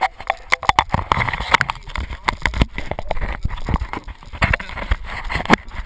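Wheeled dryland dog-sled cart rattling and jolting over a rough dirt track, a dense run of irregular knocks and clatters with low bumps.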